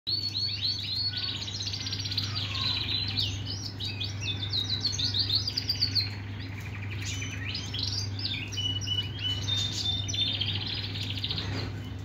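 Red-factor agate canary singing a long, rapid song of trills and chirps, with a few held whistled notes about nine seconds in, over a steady low hum.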